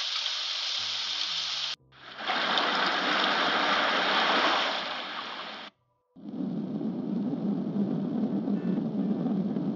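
Three short clips of steady rushing, water-like noise played one after another. Each cuts off abruptly, and the third is deeper than the first two.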